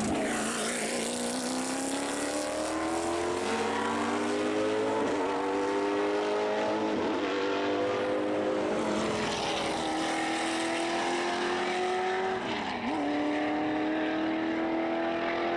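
Ford V8 race car engine accelerating, its note climbing slowly, with a brief sharp dip in pitch about thirteen seconds in.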